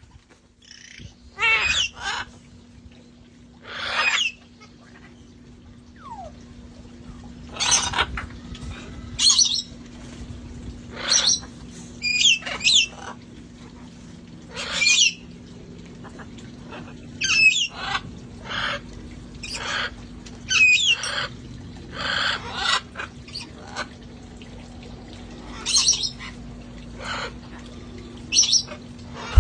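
Parrots squawking and calling, one loud short call every second or two, some with a wavering whistle-like pitch. A low steady hum runs underneath.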